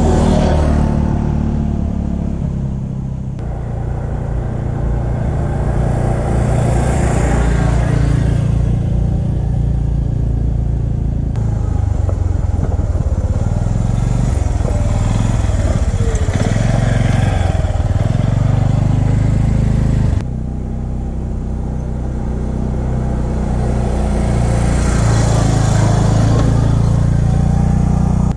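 2017 Arctic Cat Alterra 400 ATV's single-cylinder engine running on the trail, swelling louder and fading three times as the quad rides up close to the camera and away.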